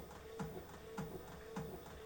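Beko washing machine partway through its wash cycle, the drum turning. A motor hum swells and dips in a steady rhythm, with a soft knock repeating a little under twice a second.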